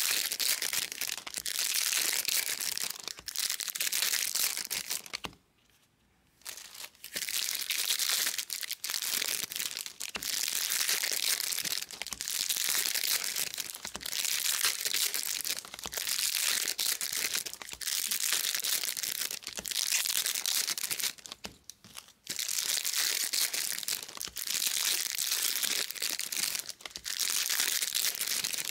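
Foil wrappers of trading-card packs crinkling and tearing as packs are handled and ripped open one after another, a continuous papery rustle that stops briefly about six seconds in and again near twenty-two seconds.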